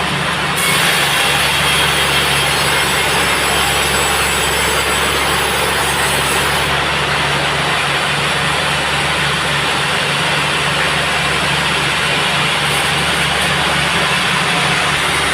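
Sawmill band saw running steadily while sawing a teak log: a constant machine hum under an even, loud hiss. The hiss brightens about half a second in and eases off somewhat about six and a half seconds in.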